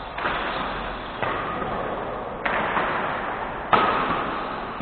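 Badminton rally: rackets striking the shuttlecock four times, a little over a second apart, each hit ringing on in the hall's echo, the last one the loudest.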